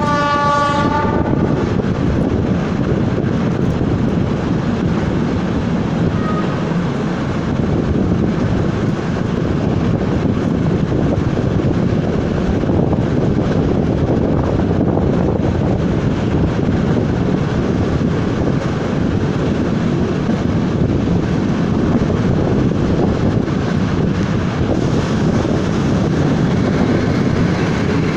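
A train's horn ends about a second in. Then comes the steady rumble of the train running along the track, heard from on board the carriage.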